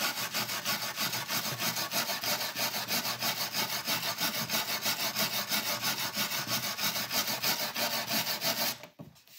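Small toothbrush-style brass-bristle brush scrubbing back and forth along the grain of a shellacked oak horn, in quick regular strokes about four to five a second, stopping just before the end. The brass bristles are digging hardened white car wax out of the open oak grain, taking some of the shellac finish off with it.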